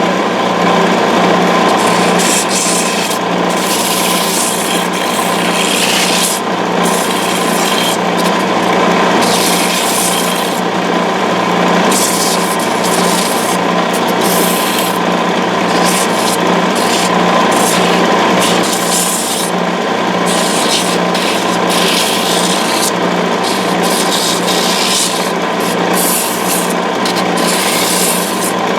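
Sanding block pressed against a wooden finial spinning on a wood lathe: a continuous rasping hiss that swells and eases unevenly, over the steady hum of the lathe motor.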